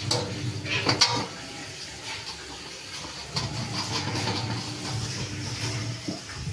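Handling noise from a metal satellite dish and its mounting bracket: a sharp click at the start and another about a second in, then lighter rustling and knocks, over a steady low hum that drops away for about two seconds.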